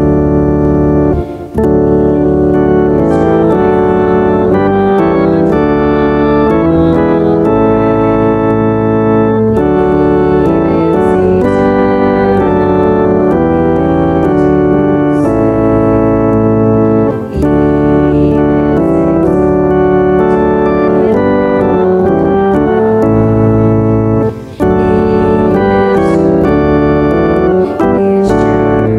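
Church organ playing slow music of held chords that change step by step, with brief pauses between phrases.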